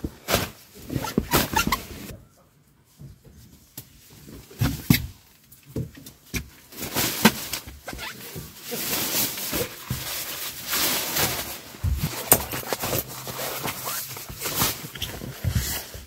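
Handling noise from setting up camping gear: tent fabric rustling, with short clicks and knocks of strap clips and poles. The rustling is denser and more continuous in the second half.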